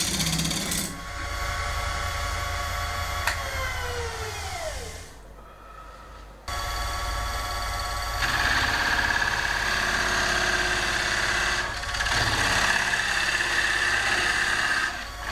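Wood lathe spinning a large wooden disc while a turning tool scrapes its face; about four seconds in the motor's pitch falls away as the lathe slows. It starts again with a jolt, and from about eight seconds a tool cuts steadily into the spinning wood, easing off briefly near twelve seconds.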